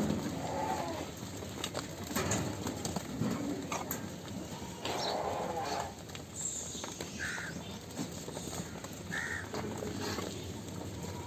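Goats bleating a few times, each call about a second long, with short bird calls in the background.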